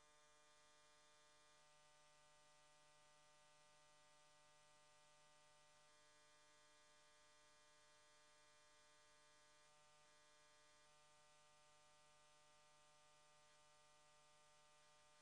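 Near silence: a faint, steady electrical hum and hiss, the recording's noise floor.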